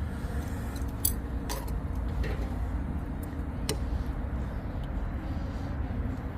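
A steady low rumble with a few scattered light clicks, cutlery against dishes at a meal.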